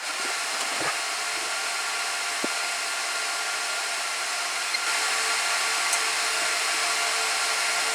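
Gigabyte R180-F34 rack server's cooling fans starting up at power-on and running at high speed as a loud, steady whining hiss, stepping up a little about five seconds in.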